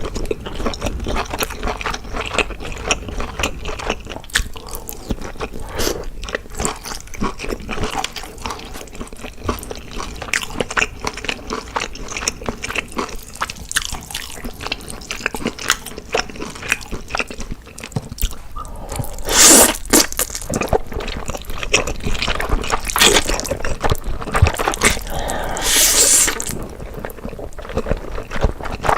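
Close-miked eating of black bean noodles: wet chewing and mouth smacks, with two longer, louder wet bursts about two-thirds of the way in and near the end.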